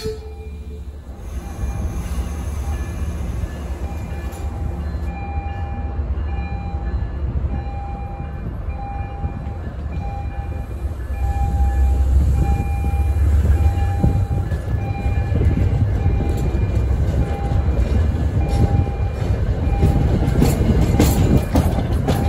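MBTA commuter rail train rolling past, a steady low rumble of coaches on the rails that grows louder about eleven seconds in. A bell rings steadily throughout, about once every three-quarters of a second.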